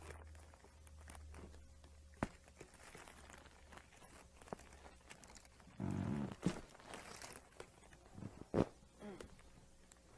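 Faint room hum with a few sharp clicks, one about two seconds in and one near the end, a short low voiced sound like a grunt or groan around six seconds in, and soft rustling and handling noise between.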